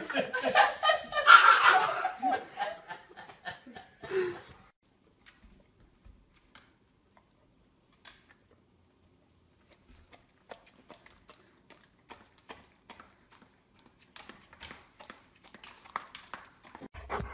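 People laughing and chuckling for the first few seconds, then near silence with only faint scattered clicks and taps.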